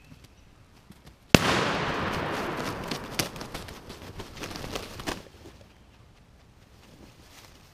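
A single loud shot about a second in, then a wild turkey tom thrashing and beating his wings in dry leaves, a crackling flurry of hits for about four seconds that stops abruptly.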